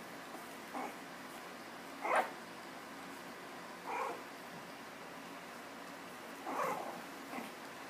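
Morkie puppies yipping while they play: about five short yips spread out, the loudest about two seconds in and a quick cluster near the end.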